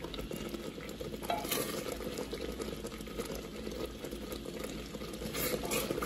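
Thick bread topping cooking down in a pot on the stove, bubbling steadily, with a wooden spoon stirring and scraping through it.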